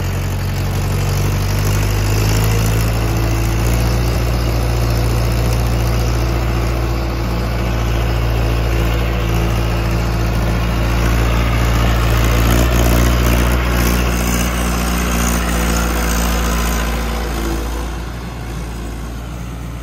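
Mahindra Arjun 605 tractor's diesel engine running steadily under load as it pulls a full trolley of sugarcane past. It is loudest about two-thirds of the way through and fades somewhat near the end.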